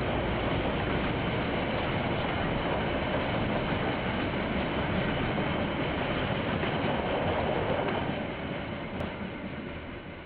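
KiwiRail train rolling past on the line, a dense rumble of wheels on rail, heard through a security camera's microphone. It holds steady for about eight seconds, then fades as the train moves away.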